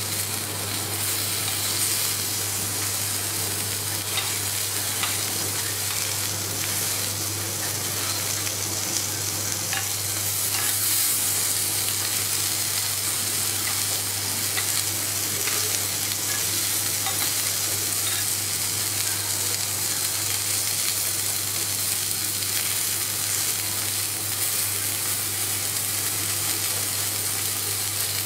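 Cubes of A5 wagyu beef sizzling steadily on a hot steel teppanyaki griddle, over a constant low hum.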